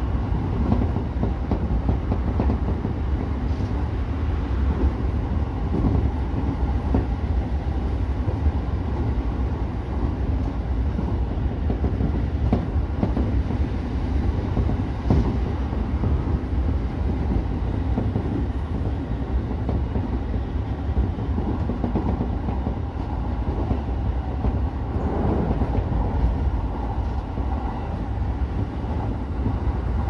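E231-series electric train running at speed, heard from the driver's cab: a steady rumble of wheels on rail with a few light clicks.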